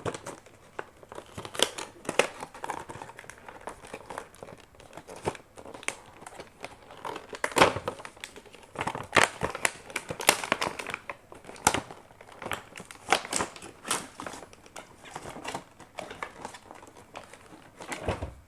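Action camera packaging being opened and handled: a cardboard box sliding and its flaps opening, and a clear plastic accessory bag crinkling, in irregular rustles and sharp crackles.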